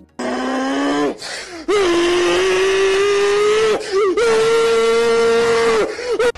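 A man's voice yelling three long sustained notes, each a step higher in pitch than the one before, with short breaks between them. It is an imitation of a car engine revving up through the gears.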